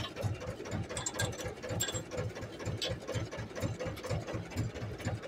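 An Ursus tractor's diesel engine idling with an even beat of about six pulses a second, with a few light metal clinks from the three-point linkage being handled.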